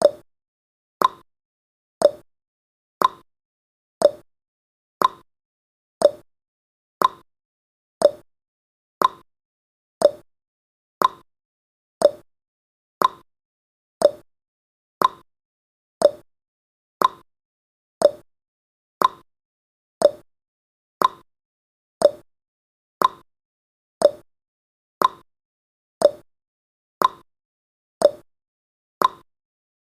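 Countdown timer's ticking sound effect: a short, sharp clock-like tick once every second, evenly spaced.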